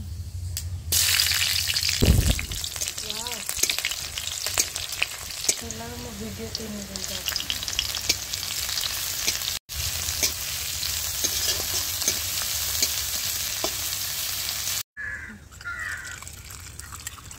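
Hot mustard oil sizzling and crackling in an iron wok as tempering spices and sliced onions fry and are stirred with a spatula, with a heavy thump about two seconds in. Near the end it cuts to water running from a tap into a steel bowl.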